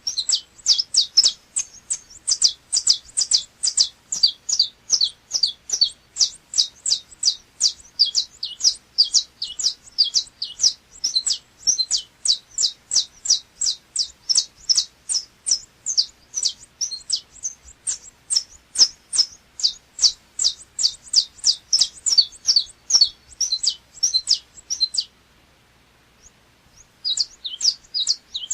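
Saffron finch of the 'chapinha' type (canário-da-terra) singing a long, rapid run of sharp, high notes, about four a second. It breaks off for about two seconds near the end, then starts again.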